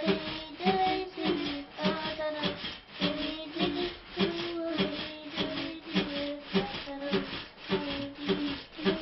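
Music with a steady beat under a melody of held notes that step up and down in pitch.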